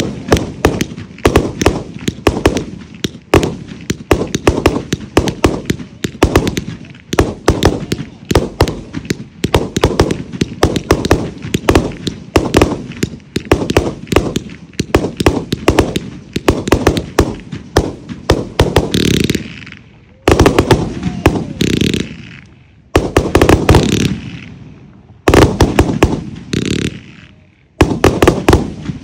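260-shot 'The Admiral' consumer firework cake firing: a rapid string of launch thumps and bursting shells, several a second. About two-thirds of the way in it changes to denser salvos lasting a second or two, with brief pauses between them.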